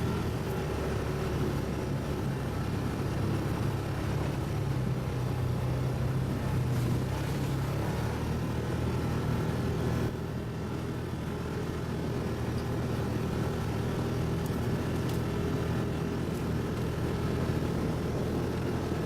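ATV engine running steadily while under way, with a continuous low drone and a slight drop in loudness about halfway through.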